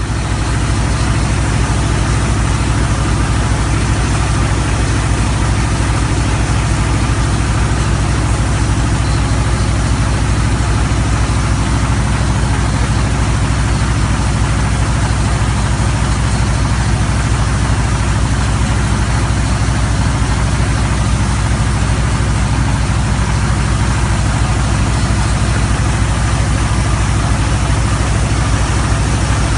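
The 18.37 kW engine of an HF120W water well drilling rig running steadily at a constant speed, with a deep, even hum and a broad mechanical noise above it.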